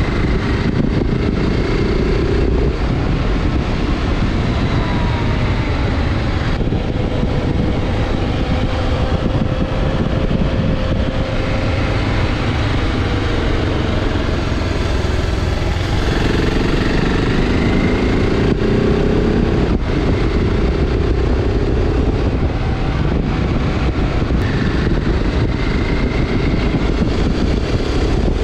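BMW G650 Xcountry's single-cylinder engine running while riding, its pitch rising and falling as the throttle changes, under heavy wind buffeting on the microphone.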